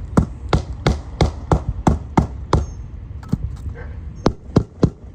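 Hammer blows on a shingle roof, clearing a nail that blocks a replacement shingle from sliding into place: a quick run of about nine strikes, roughly three a second, then four more spaced-out blows.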